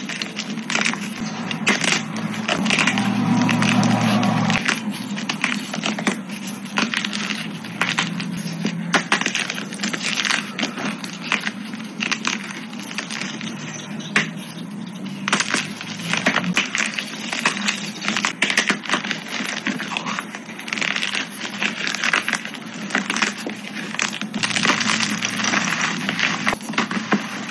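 Dyed gym chalk blocks being crushed and crumbled by hand into powder: dense, irregular crunching and crackling of brittle chalk breaking apart.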